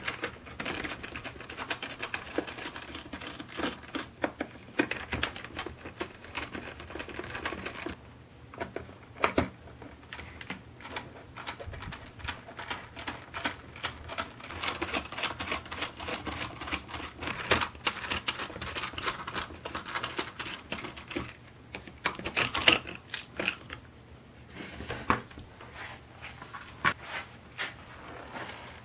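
Hand work on the plastic cyclone of a Dyson V6 vacuum with a small screwdriver: dense irregular clicks, taps and scraping of tool and hands on plastic, with louder knocks now and then.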